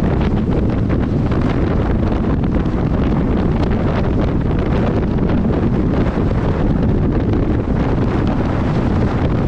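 Steady, heavy wind rush buffeting the microphone of an onboard camera on a bicycle moving at racing speed.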